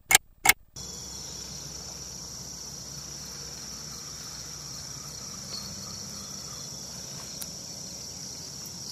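A clock-tick sound effect, two sharp ticks about a third of a second apart, stops under a second in. After it comes a steady, high-pitched chorus of insects.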